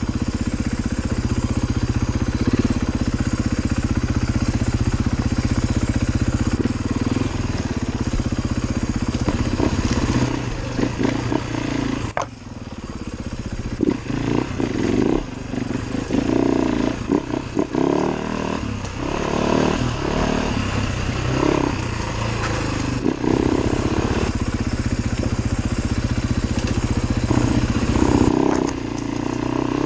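Off-road motorcycle engine running under the rider on a rough trail. It runs fairly steadily at first, drops away briefly about twelve seconds in, then revs up and down again and again as the throttle is opened and closed.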